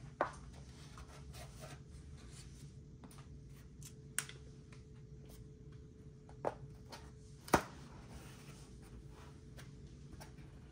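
Paper bag and wrappers rustling as takeout food is unpacked by hand, with a few sharp taps as containers are set down on a marble table, the loudest about two thirds of the way through. A faint steady hum runs underneath.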